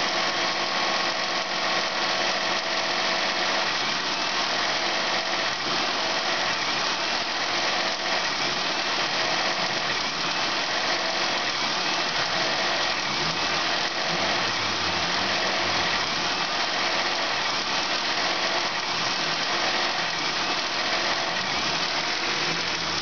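1999 Honda Accord 3.0 L V6 running steadily at idle, heard up close over the open engine bay during a used-engine test run.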